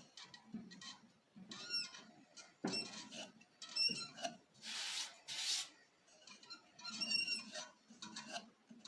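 Carbide round-nose scraper cutting inside a mulberry hollow form spinning on the lathe, in short intermittent passes that give a scraping hiss with high squeaks.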